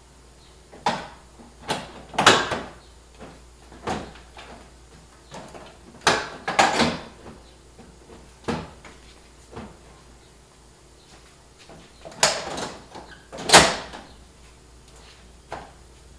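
Plastic Toyota Tundra TRD Pro grille being set onto the truck's front end: a dozen or so irregular knocks and clunks as it is positioned and its bottom clips are pushed into place, the loudest near the end.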